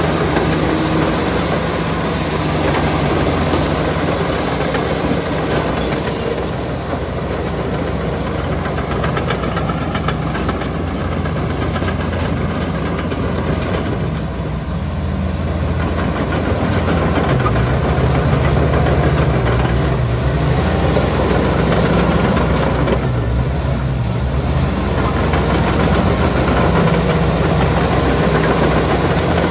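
Komatsu D85ESS-2 bulldozer's diesel engine running steadily, a little louder from about halfway through.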